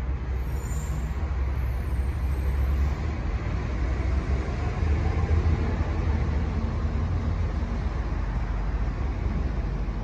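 Steady low rumble of running machinery, heard from inside a truck's insulated refrigerated box.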